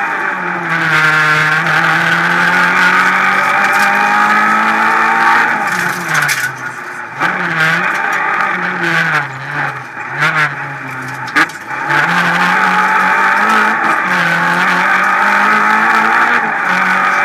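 Renault Clio Ragnotti rally car's engine heard from inside the cabin at stage speed. It pulls at high revs, then through the middle the revs drop and climb again several times with a few sharp clicks, before it settles back to steady high revs.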